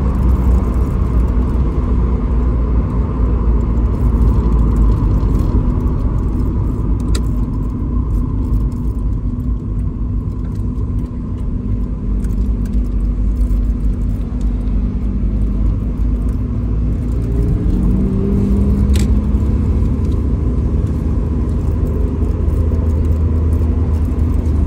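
Mazda Roadster (MX-5) driving, heard inside the cabin: a steady low engine and road rumble, with the engine tone rising as the car speeds up a little after halfway. Two short sharp clicks stand out, one about a third of the way in and one just after the engine rise.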